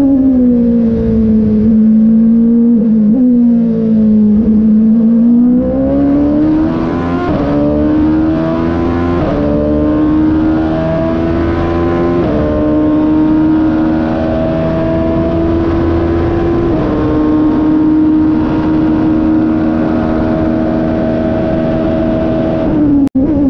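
Porsche RS Spyder's 3.4-litre V8 race engine heard from the cockpit. The note drops under braking and downshifts, then the engine pulls hard through the gears with several quick upshifts and holds high revs along a straight. It falls away again under braking near the end, with a very brief cut in the sound just before.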